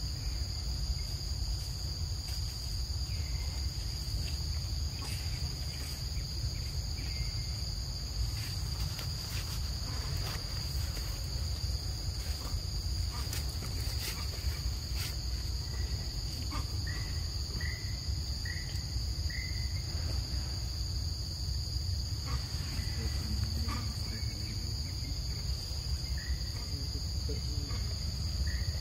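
Steady high-pitched drone of insects, likely cicadas or crickets, over a low rumble, with a few faint clicks. A little past the middle, a quick run of four short high chirps.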